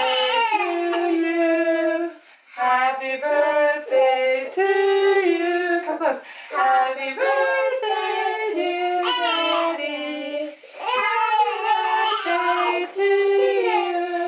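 Unaccompanied voice singing a birthday song in four sung lines with long held notes and short breaths between them.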